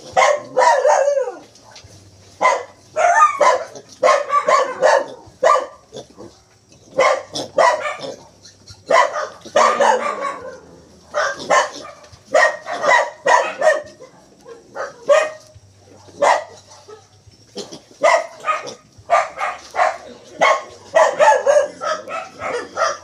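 Piglets calling restlessly: quick clusters of short, high-pitched grunts and squeals, broken by brief pauses.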